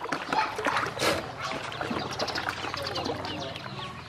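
A group of domestic ducklings peeping continually in many short, high calls while they paddle and splash in a plastic basin of water, with a louder splash about a second in.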